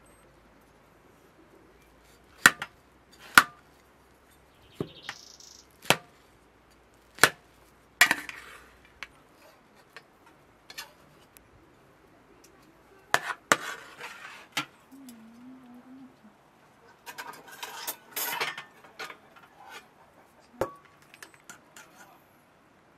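Metal serving spoon clinking and scraping against enamel plates as rice and meat are dished out: a dozen or so sharp clinks a second or more apart, with short scrapes between them.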